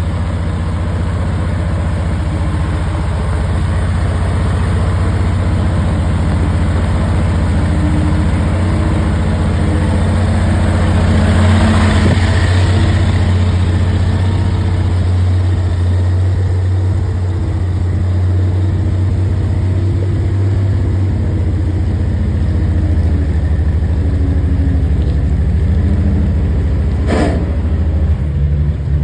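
A heavy engine running steadily, with a swell of rushing noise about twelve seconds in and a single sharp knock near the end.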